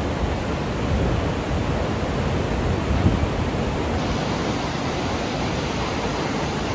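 Steady rushing of a fast mountain river, the Parvati, as an even wash of noise.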